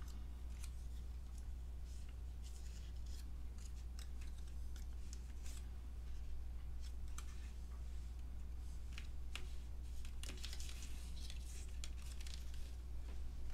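Cardstock and small paper die-cut pieces handled on a desk: scattered light rustles, taps and scrapes, busiest about ten seconds in, over a steady low hum.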